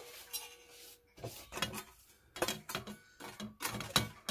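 Metal kitchen trays and utensils clinking and knocking as they are handled: a run of sharp, uneven clinks starting about a second in.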